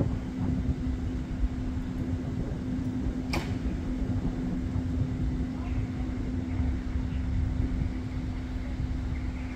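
Steady machine hum of a locomotive, one even tone over a low rumble, with a single sharp click about three and a half seconds in.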